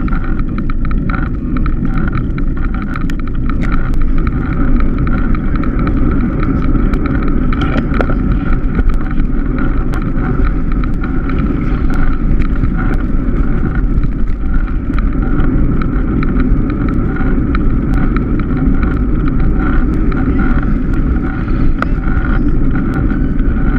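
Wind rush and road rumble picked up by a handlebar-mounted GoPro Hero3 on a moving road bike: a steady noise with frequent faint clicks from the bumpy ride.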